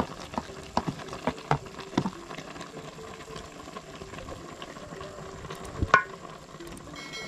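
Wooden spoon tapping and scraping smoked fish out of a plastic container into an aluminium saucepan of tomato sauce, then stirring it in. The taps come several to a second at first, with one louder knock about six seconds in, over a low steady simmer from the pot.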